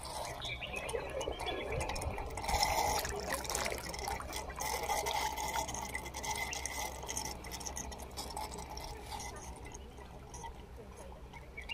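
Water poured from a wooden scoop into a large bronze water basin, splashing and trickling with drips falling back onto the water surface. It is louder a few seconds in and eases off toward the end.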